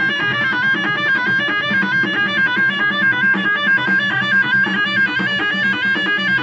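Live Moroccan street-circle music: a high, piercing lead melody played in quick, ornamented runs over a steady low drum rhythm.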